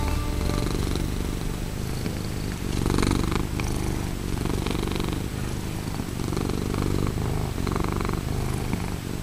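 Bengal cat purring steadily, the purr swelling and easing with each breath about every second and a half.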